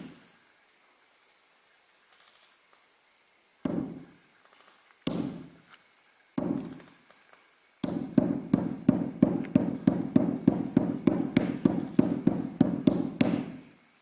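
Juggling balls bouncing on a stage floor, each hit a sharp thud with a short low ring: three single bounces a second or so apart, then a fast, steady run of bounces, about four a second, that stops shortly before the end.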